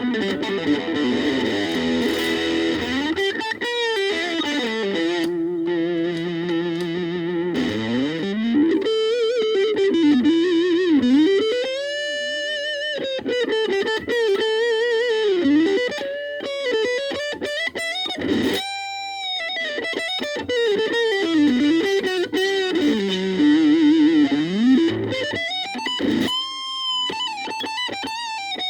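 Gaban Les Paul-type electric guitar played through a VOX Soundbox Mini amp. It opens on chords, then plays single-note lead lines with wide vibrato, string bends and slides, and several held notes.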